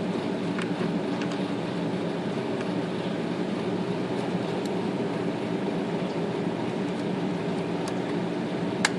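A steady low mechanical hum, with a few light clicks of small metal parts being handled and a sharper click near the end.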